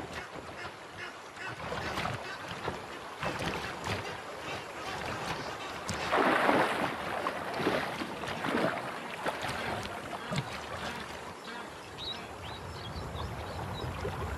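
River water splashing and sloshing as a crocodile moves through the shallows gripping a hippo carcass. The splashing comes in irregular surges and is loudest about six seconds in.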